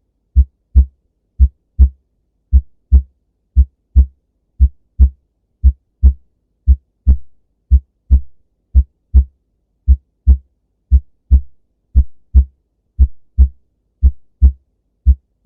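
Human heart sounds, a steady lub-dub: two short, low thuds close together (S1 then S2), repeating about once a second.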